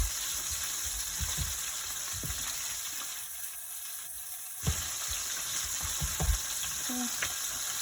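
Red snapper frying in hot oil on a stove top: a steady sizzle, with a few soft bumps. The sizzle dips for a moment about three seconds in and comes back abruptly near five seconds.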